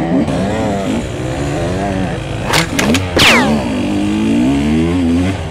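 Husqvarna TE 150's two-stroke dirt-bike engine revving up and down while being ridden. About two and a half seconds in there are a few sharp clicks, then a brief high whine that drops steeply in pitch.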